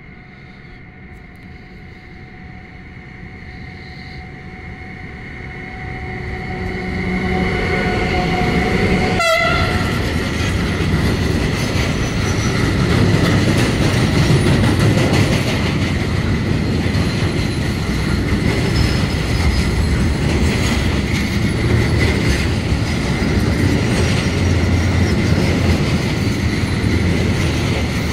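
A freight train passes. An electric locomotive approaches with a steady tonal whine that grows louder and drops in pitch as it goes by about nine seconds in. Then the wagons roll past with a steady wheel rumble and clatter.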